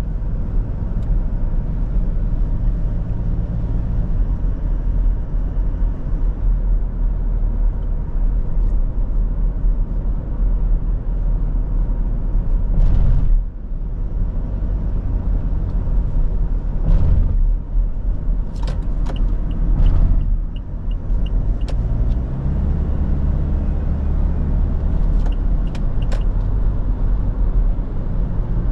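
Toyota Kijang Innova's 2.4-litre four-cylinder turbo diesel (2GD-FTV) and road noise while driving: a steady low rumble whose engine pitch shifts in steps during the second half. Several short sharp clicks and taps come in a cluster past the middle and again near the end.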